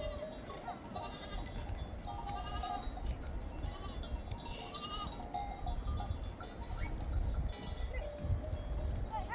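A flock of sheep and goats bleating over and over in short calls, with animal bells clanking now and then, over a steady low rumble.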